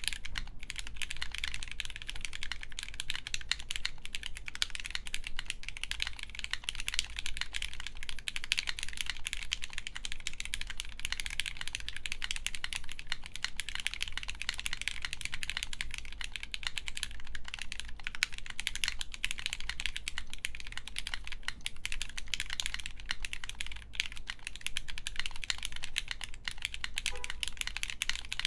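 Continuous fast typing on a mechanical keyboard with lubed Gateron X linear switches in an FR4 plate and CRP R4 keycaps: a dense, steady stream of keystroke clacks.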